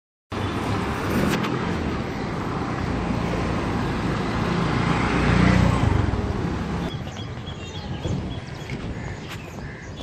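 Street traffic noise with a low motor rumble. It cuts in suddenly just after the start, swells to its loudest about five and a half seconds in, and eases off after about seven seconds.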